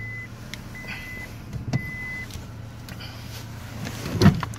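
A 1998 Honda Accord with a muffler-deleted exhaust idling just after a start, a steady low hum that is quiet at idle. The car's warning chime beeps four times in the first two seconds, and there is a single loud knock about four seconds in.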